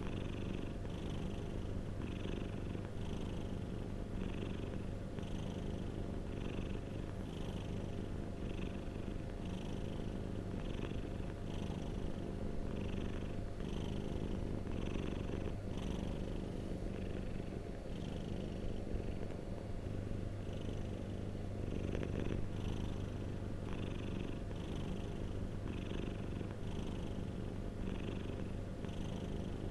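Domestic cat purring continuously, close up, with a steady low rumble that swells and eases about once a second.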